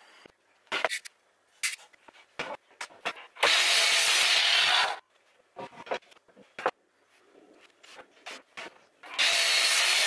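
Workshop sounds: scattered knocks and clatter of wood being handled, and twice a loud burst of power-saw noise about a second and a half long that starts and stops sharply. The second burst is a 305 mm double-bevel sliding compound mitre saw cutting a board.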